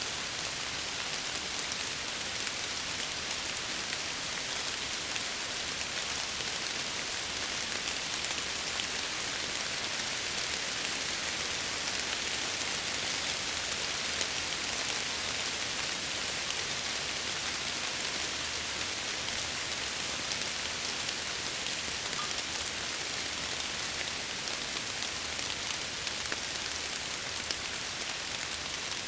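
Steady rain pattering against window glass, an even hiss with many fine drop ticks.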